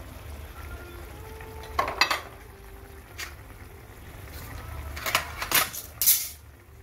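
A slotted spatula stirring simmering chicken stew in a nonstick pan, knocking and scraping against the pan several times, with the loudest knocks about two seconds in and again near the end.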